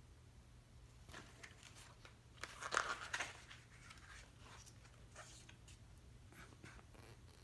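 Paper pages of a softcover booklet being turned and handled: a run of quick rustles and flicks, loudest about two and a half to three seconds in.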